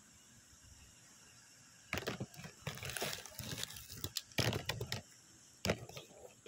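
Rustling and clicking in bursts: a dense run of clicks and rustle starting about two seconds in and lasting about three seconds, then two shorter bursts near the end.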